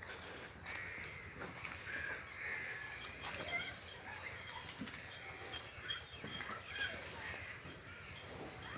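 Birds calling repeatedly with short, crow-like caws, over scattered faint clicks and rustles of Nili-Ravi buffaloes tearing and chewing grass.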